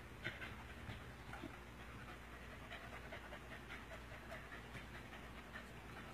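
A dog panting and snuffling close by, in short, irregular breaths during rough play.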